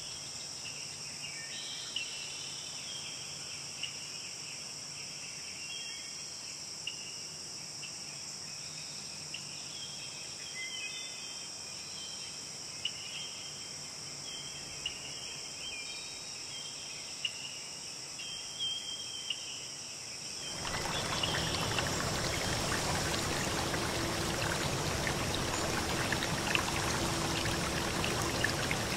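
Steady high insect chorus, like crickets, with scattered short high chirps. About two-thirds of the way through it cuts abruptly to the louder, steady rush of a flowing stream.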